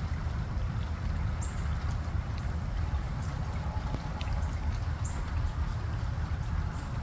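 Light rain falling on floodwater, drops pattering on the standing water over a steady low rumble. A few short, high chirps sound about a second and a half in, at five seconds and near the end.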